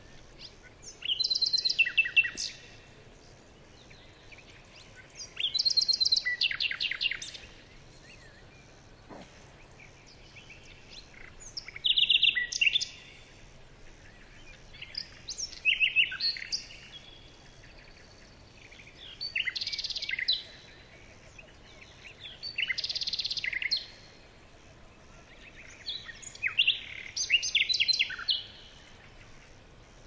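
Baya weaver singing: seven short bursts of fast, buzzy chattering notes, each lasting one to two seconds, repeated about every four seconds.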